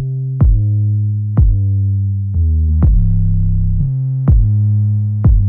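Electronic background music: drum-machine beats about once a second over sustained synth bass notes.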